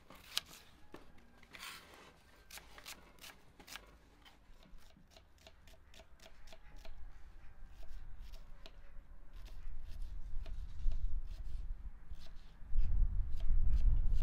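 Kitchen knife slicing an onion on a wooden chopping block: a run of quick, sharp knocks as the blade meets the board. A low rumble builds underneath and is loudest in the last second or so.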